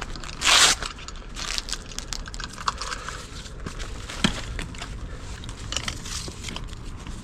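A short, loud rustle about half a second in, followed by scattered small clicks and crackles, like gear or debris being handled or stepped on.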